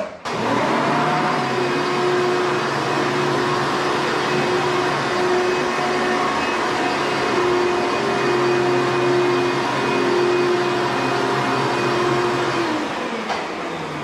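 Vintage vacuum cleaner switched on. Its motor spins up to speed within about a second and runs with a steady whining hum. Near the end it is switched off and winds down.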